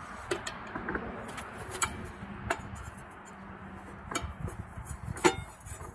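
Hands refitting the air cleaner on an air compressor pump head: handling noise with about five sharp clicks and knocks of hard parts, the loudest near the end.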